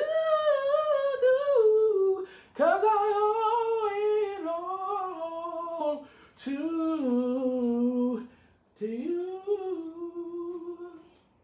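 A man singing a cappella gospel, drawing out four long wordless phrases whose pitch wavers and slides within each, with short breaks for breath between them.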